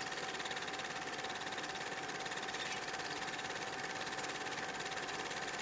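Corded Ryobi jigsaw cutting through MDF, running at a steady, even speed.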